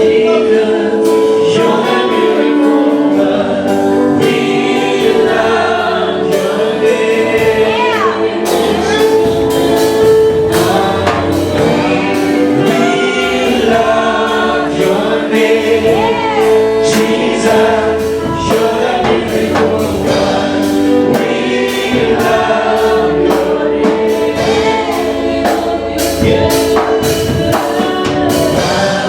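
Gospel choir singing a worship song over steady held instrumental notes and frequent percussion hits.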